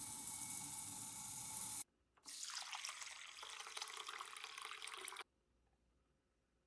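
Water running from a kitchen tap for about three seconds, turned on and off abruptly. Before it, a different steady sound cuts off about two seconds in.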